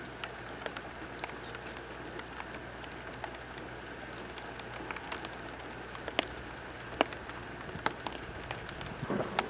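Steady rain with scattered sharp ticks of drops striking close by. A low rumble of thunder begins to build near the end.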